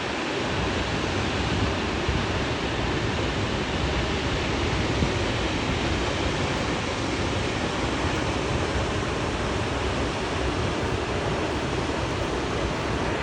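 Waterfall rushing: a steady, even wash of falling-water noise that holds at one level.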